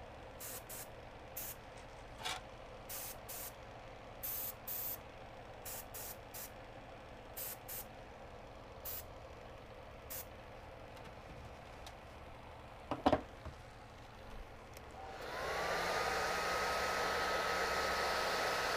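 Paasche airbrush giving short hissing bursts of spray, about a dozen in the first eleven seconds, and a single knock about 13 seconds in. About 15 seconds in, a hair dryer switches on and runs steadily, with a whine that rises and then holds, blowing on freshly airbrushed paint to heat-set it.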